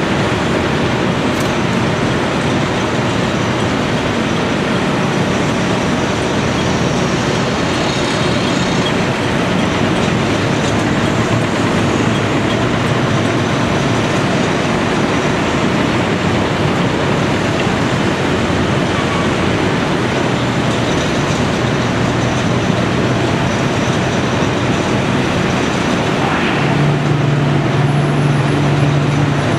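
Caterpillar 345C L excavator's diesel engine running steadily under load, loud and continuous. About 27 s in the engine note strengthens and gets a little louder.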